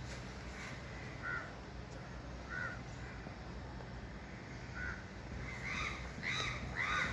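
Crows cawing: a string of short caws, a few scattered at first, then three louder ones in quick succession near the end, over a steady low hum.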